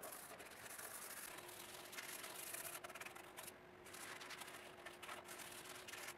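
Paintbrush bristles scrubbing a liquid finish into end-grain wood, in quick back-and-forth strokes with short pauses; faint.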